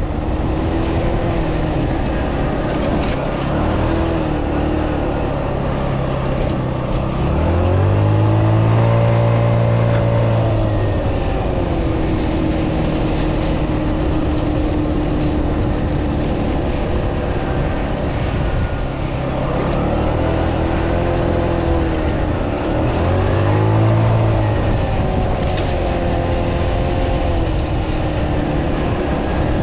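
Italika D125 125cc mini scooter engine running under way, with a steady rushing noise underneath. The engine revs up and falls back three times: once about eight seconds in, and twice more in the second half.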